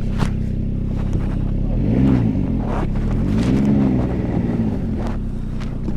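Ski-Doo Skandic snowmobile engine running in low gear while breaking trail, revving up and back down about two seconds in and again near four seconds. A few sharp clicks sound over the engine.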